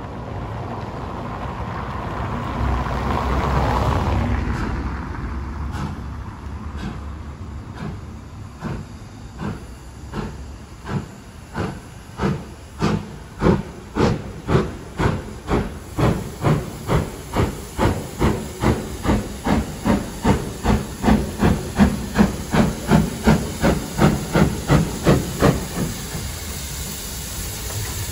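A car passes in the first few seconds. Then a steam locomotive pulls away with its train, its exhaust chuffs starting about one a second and quickening to about two a second before fading near the end.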